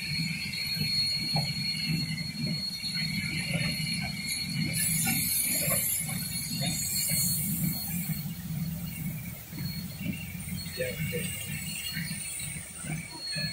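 Great Smoky Mountains Railroad steam train, led by 2-8-0 locomotive 1702, rolling past on the rails: a steady low rumble with scattered short clanks. A bright hiss comes in about five seconds in and fades by about eight.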